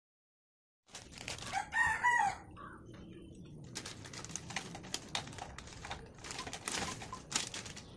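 A rooster crows briefly about a second and a half in. Then stick firecrackers tipped from a foil packet clatter into a glass box in a run of quick clicks and rattles.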